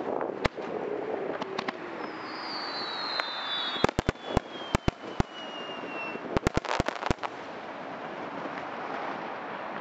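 Aerial firework shells bursting with sharp bangs: one about half a second in, a rapid cluster about four seconds in, and another quick cluster a couple of seconds later. A long high whistle slides down in pitch through the middle.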